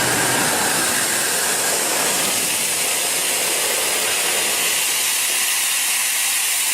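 Loud, steady hiss of compressed air from a DENAIR DACY-33/35 diesel portable screw air compressor. The low rumble underneath thins out about two seconds in while the hiss carries on.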